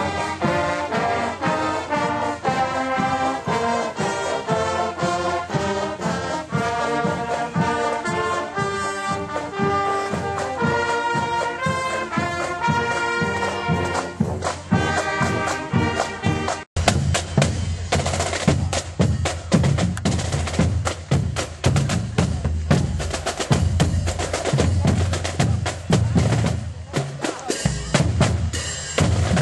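High school marching band brass section playing a march tune, sousaphone and trombones among them. After a sudden cut about two-thirds through, the drumline takes over with a rapid cadence on snare drums and deeper drums.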